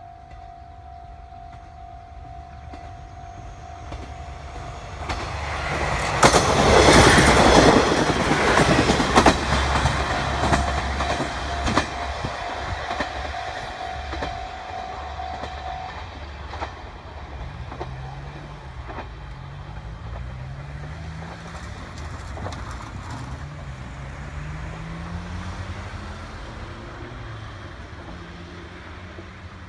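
Two-car JNR KiHa 47 diesel railcar set passing a level crossing, its wheels clattering loudly over the rail joints about six to nine seconds in, then fading away. A steady level-crossing bell rings and stops about sixteen seconds in. After that a road vehicle's engine rises in pitch several times as it pulls away through the gears.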